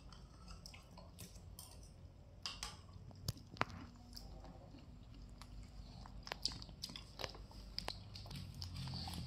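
Faint eating sounds: metal spoons clicking against glass mugs now and then, with quiet chewing of soft grass jelly in coconut milk.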